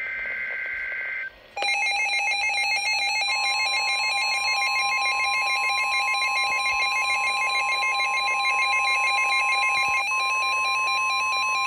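NOAA Weather Radio emergency alert: a brief burst of the warbling digital header tones, then a loud, steady, buzzy alert tone, joined about three seconds in by a second, higher steady tone. The lower tone drops out near the end.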